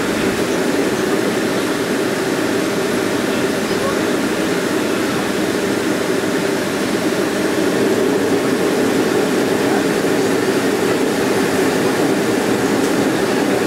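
Steady jet-engine and cabin noise inside a Boeing 737 taxiing on the ground, a constant hum and rush that grows slightly louder about eight seconds in.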